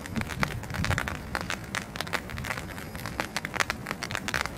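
Rain falling, its drops tapping irregularly and densely on an umbrella close by, over a low rumble of wind.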